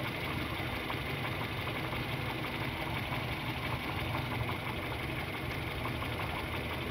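Petrol car engine idling steadily, with the hood open.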